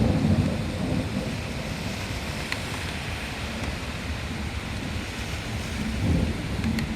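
Heavy rain falling steadily during a thunderstorm, with a roll of thunder dying away in the first second and another low rumble swelling briefly near the end.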